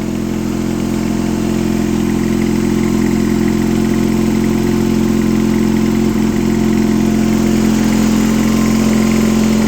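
Craftsman garden tractor's 770cc boxer-twin flathead engine running steadily at about half throttle just after a cold start, sounding nice and hearty; it grows a little louder over the first few seconds, then holds an even note.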